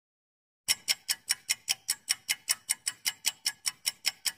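Countdown-timer clock-tick sound effect: rapid, evenly spaced ticks, about five a second, starting just under a second in and marking the time left to answer.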